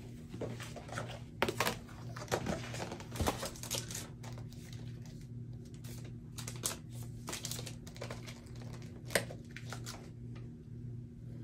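Scattered light clicks, taps and crinkling of a plastic storage box and label-sheet packaging being handled and set down, over a steady low hum.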